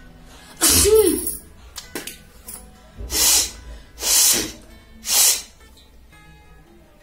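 A woman sneezes loudly once, a voiced sneeze about a second in, then gives three short, hard bursts of breath through the nose about a second apart. Soft acoustic guitar music plays underneath.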